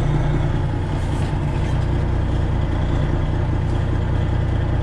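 Detroit Diesel 12.7-litre engine of a Freightliner Classic XL semi truck running steadily at low revs while the rig backs slowly, heard from inside the cab.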